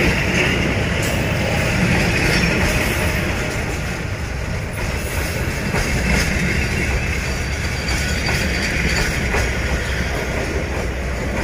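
Freight train's covered box wagons rolling past close by: a steady rumble and hiss of steel wheels on the rails, with a few scattered clacks.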